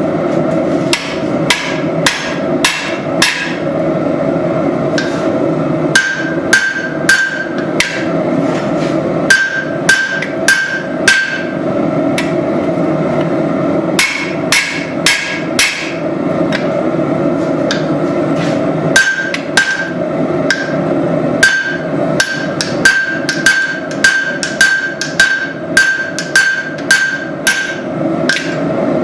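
Hand hammer blows on hot steel at the anvil, irregular at about one to two a second. Many blows ring with a short, high anvil tone, over a steady rushing noise.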